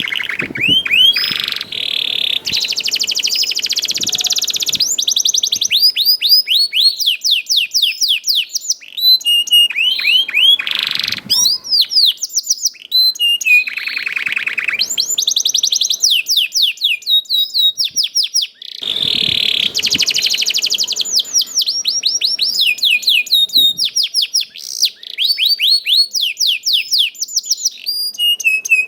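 Domestic canary in full song: long strings of rapid, repeated falling chirp notes and fast rolling trills, the phrase changing every second or two, with a couple of brief breaks.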